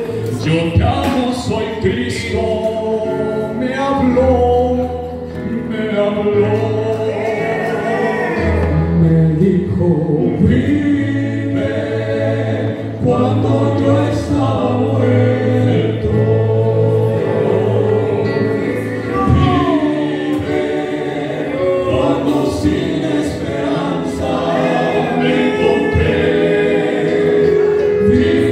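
Male vocal quartet singing a gospel song in harmony into handheld microphones, with long sustained low bass notes under the melody.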